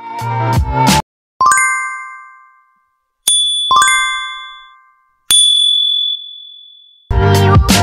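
Background music stops about a second in, then four separate chime dings ring out one after another, each fading away. The strikes alternate between a lower and a higher pitch, and the last one holds a long high tone. Music starts again near the end.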